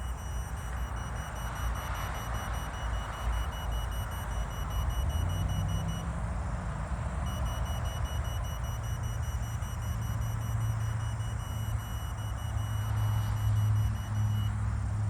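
An engine running steadily, growing louder about five seconds in. A faint, high-pitched electronic beeping repeats throughout and pauses briefly in the middle.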